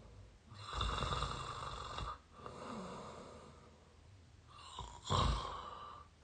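A person snoring through the mouth close to the microphone. Two loud snoring breaths come about a second in and about five seconds in, with a softer breath between them.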